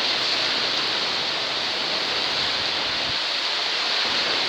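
Heavy rain pouring down in a windstorm, a steady even hiss.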